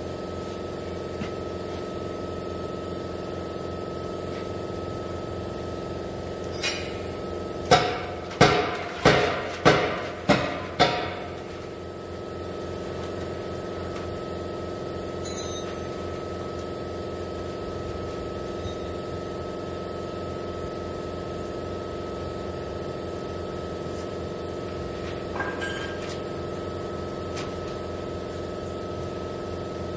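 A steady machine hum with a thin high whine. About eight seconds in, six sharp knocks about half a second apart, each ringing briefly, stand out as the loudest sound.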